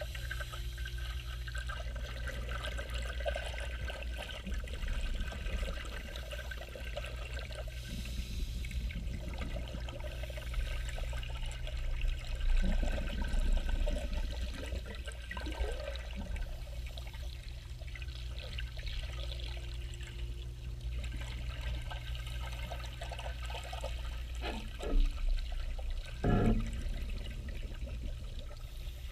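Scuba diver breathing underwater: the bubbling wash of exhaled air from a regulator heard through the water, over a steady low hum. The bubbling swells louder now and then, with two short, loud bursts near the end.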